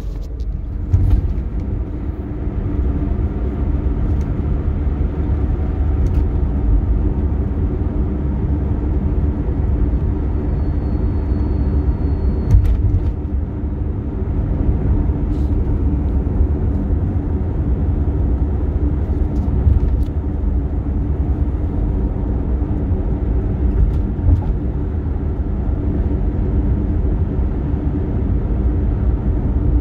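Toyota Tercel driving at highway speed: a steady low rumble with an even drone through it, and a few short knocks. It is the abnormal noise this car makes on the highway.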